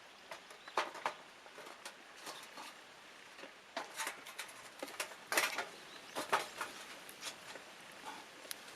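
Wood fire burning in a small folding fire stand, crackling with irregular sharp pops, busiest from about four to six and a half seconds in.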